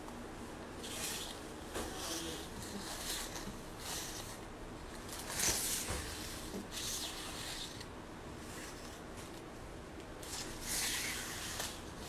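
Quiet intermittent rustling and rubbing, a string of short hissy swishes every second or so, loudest about five seconds in and near the end.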